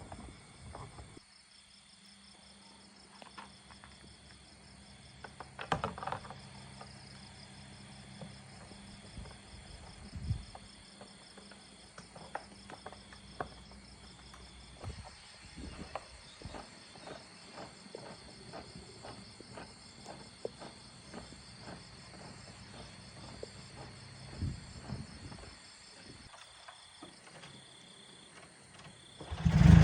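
Faint insect chirping, repeating a little under once a second over a low steady hum, with scattered light clicks and taps.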